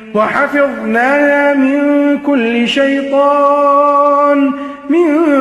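A man reciting the Quran in melodic tajweed style, chanting one long phrase of held notes with gliding pitch turns and a quick wavering ornament near the end.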